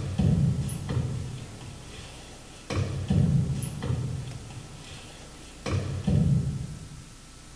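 Sparse percussive music: a sharp knock with a low rumble after it that dies away over about a second, repeated three times about three seconds apart.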